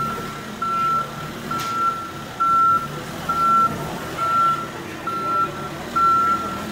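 Backhoe's backup alarm beeping evenly on a single high tone, about once a second, while it reverses, over the low drone of its diesel engine.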